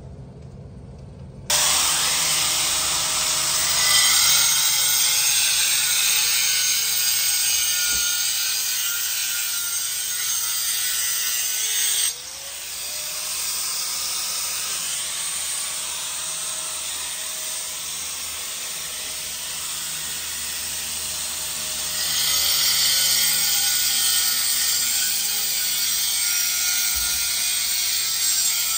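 Electric angle grinder cutting into a broken ceramic floor tile to remove it for repair. It starts suddenly about a second and a half in and runs loud and steady, its motor pitch wavering as it bites. It eases off about twelve seconds in and bears down harder again about ten seconds later.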